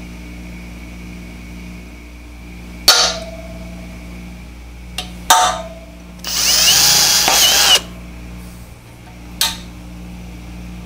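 A hammer striking a center punch on the lathe's metal stand: sharp ringing taps about three seconds in and twice more around five seconds. Then a cordless drill runs for about a second and a half, boring into the stand, its motor pitch rising. A steady low hum lies underneath.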